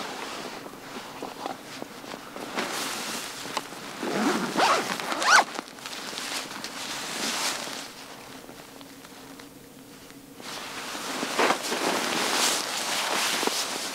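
A zipper being pulled in several quick runs, with rustling between them. There is a quieter lull about eight to ten seconds in.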